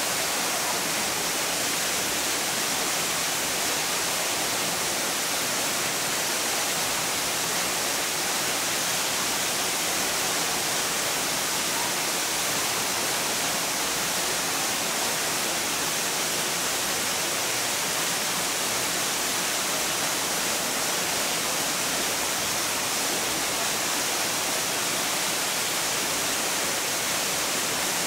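Steady, even hiss of water, strongest in the highs.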